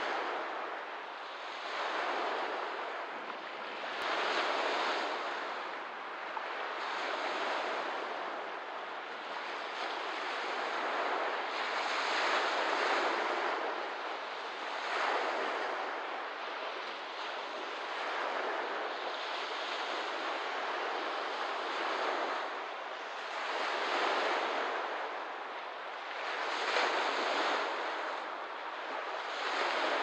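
Small lake waves washing onto the shore in a steady rhythm, each wash swelling and fading every two to three seconds.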